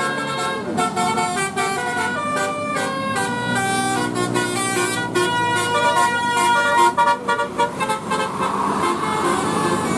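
A bus's telolet musical horn, a basuri-type multi-tone electric horn, playing a quick tune of short notes that jump between pitches.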